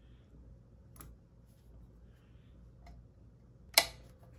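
Faint handling clicks as a bracket held in locking pliers is fitted against the scooter deck, with one sharp click near the end.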